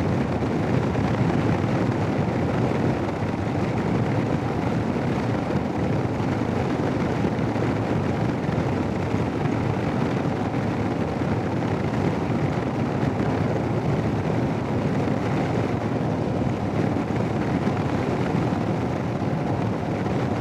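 Royal Enfield Himalayan motorcycle under way: steady wind rush and engine and road noise, picked up by a Sena 10C Evo helmet intercom microphone.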